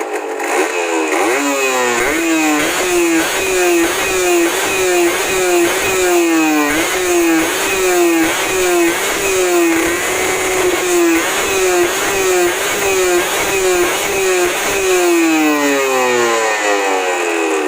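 Yamaha TZM 150's single-cylinder two-stroke engine being revved in quick repeated blips, the pitch climbing and dropping about one and a half times a second, then winding down in a long falling tone near the end.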